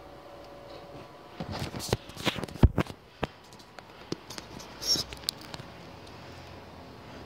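Handling noise from a camera being moved about: rustling with a cluster of sharp knocks and clicks, the loudest about two and a half seconds in, and another short rustle near five seconds.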